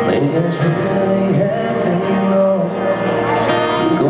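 Acoustic guitar strummed under a man's singing voice, played live over a concert PA.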